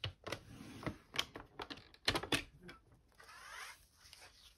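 Paper trimmer's scoring blade run along its rail to score card stock: a run of sharp, irregular clicks and scrapes. A little past three seconds a soft swish as the card stock is slid across the board.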